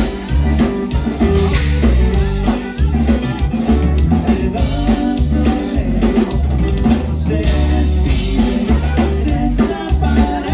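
Live conjunto band playing a song, a drum kit and bass keeping a steady dance beat.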